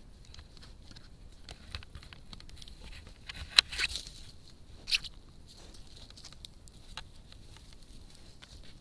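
A furry animal rubbing and nosing against a trail camera's housing right at the microphone: irregular scraping and rustling with scattered clicks, and two sharper knocks about three and a half and five seconds in.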